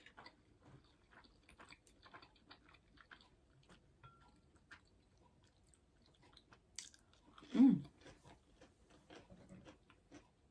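Close-up chewing: soft, wet mouth clicks from a person eating. About two-thirds of the way through comes a short low hum that drops in pitch.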